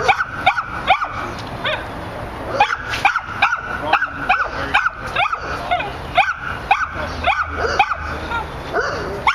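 A dog barking and yipping repeatedly, in short high barks two or three a second, with a brief pause a little over a second in.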